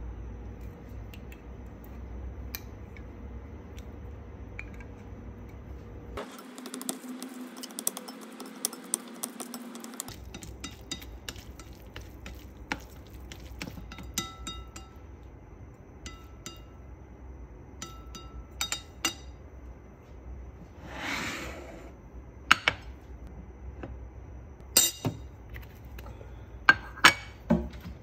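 Wooden chopsticks tapping and clinking against a ceramic bowl while noodles are tossed in sauce: scattered light clicks, with a few louder, sharper clinks near the end.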